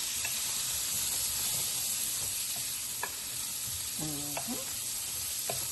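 Swedish meatballs frying in oil in a Visions glass pan: a steady sizzle, with a few light clicks.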